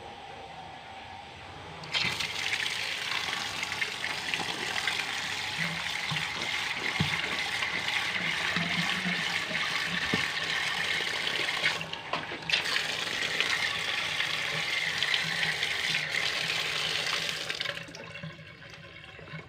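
Water running steadily, adding water to a pot of castor seeds being boiled for bait. It starts suddenly about two seconds in, stops briefly just past the middle, and ends near the finish.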